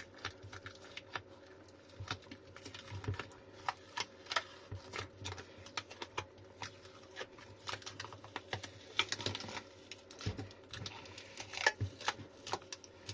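Hands peeling and picking at the wrapping on a lithium battery pack: irregular small clicks, ticks and crackles, a few a second, with a busier patch around nine to twelve seconds in.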